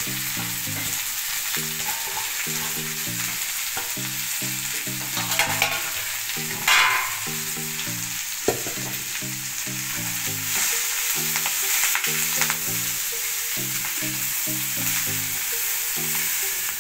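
Black nightshade greens sizzling steadily in hot sesame oil in a kadai as they are stirred and tossed with a metal ladle, with a few scrapes and knocks of the ladle on the pan about midway. A faint tune plays underneath.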